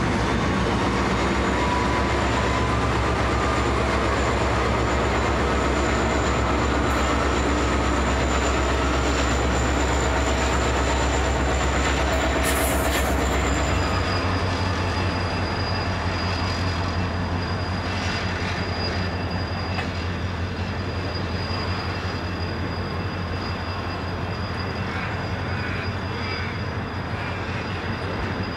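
Freight train passing: the low steady drone of its diesel locomotives over the rumble of rolling wagons, with thin high wheel squeals. About halfway through the drone changes abruptly and the wagons roll on with a steady high squeal.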